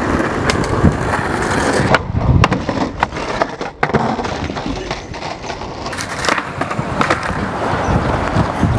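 Skateboard wheels rolling over rough asphalt, with several sharp clacks and knocks as the board and skater hit a concrete ledge and the ground.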